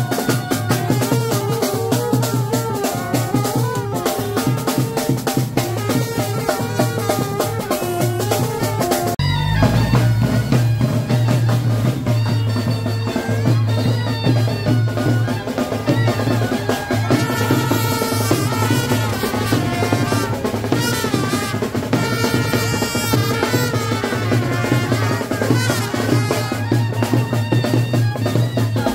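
Loud festive music with a heavy drum beat and a melody over it. The music changes abruptly about nine seconds in.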